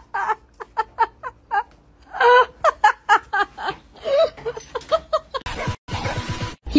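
A person laughing in quick repeated bursts. Near the end a short stretch of steady noise comes in, broken by a brief gap.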